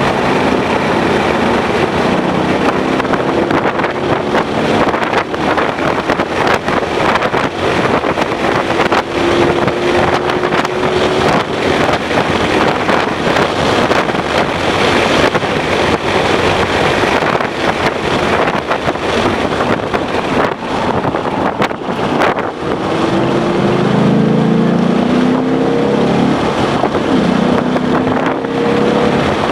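2011 Ford Mustang GT's 5.0-litre V8 pulling at track speed under heavy wind and road noise, its pitch climbing twice near the end as it accelerates through the gears.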